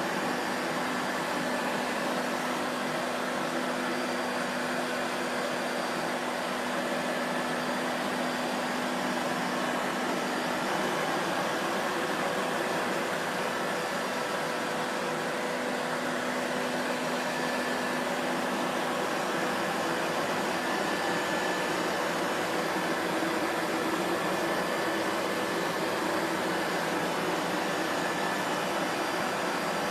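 Vacuum cleaner running steadily: an even rush of motor and airflow noise with a faint constant hum in it and little deep bass.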